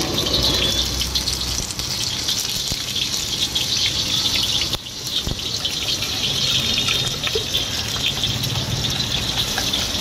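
Eggs frying in hot oil in a ladle inside a large wok: a steady sizzle with many small pops and crackles, dipping briefly about five seconds in.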